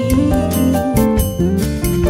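Cantopop ballad: a woman singing over nylon-string guitar, electric bass and drums.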